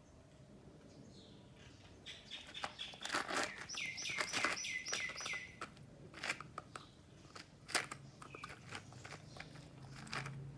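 Dog crunching ice cubes: sharp irregular cracks and clicks, densest in the middle. A quick run of about eight high chirps sounds around the middle.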